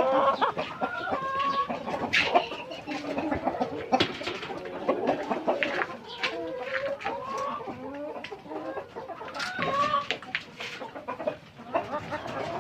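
A flock of Rainbow Rooster chickens clucking at a feeder, with many short calls overlapping one another and frequent sharp taps in between.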